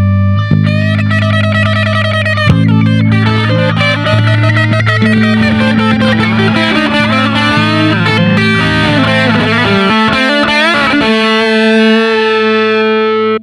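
Electric guitar playing an A minor blues through an effects unit, with a fast run of bent notes over sustained low notes. It settles on a held chord that cuts off suddenly.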